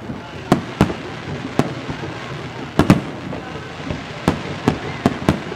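Fireworks going off: a string of sharp bangs at uneven intervals, some in quick pairs, about nine in under six seconds, over a steady hiss.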